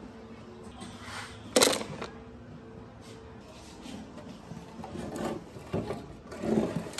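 Workshop handling sounds from the disassembly of an old rusty machine: a sharp knock about one and a half seconds in, then a series of lighter knocks and scrapes toward the end, over a faint steady hum.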